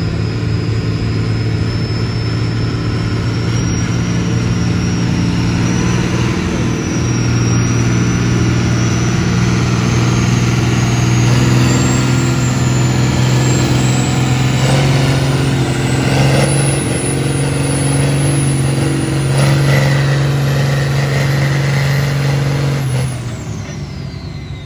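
John Deere tractor's diesel engine running hard under load, pulling a weight-transfer sled, with a steady engine note and a high whine that climbs slowly through the pull. Near the end the engine comes off load, its note drops away and the whine falls in pitch.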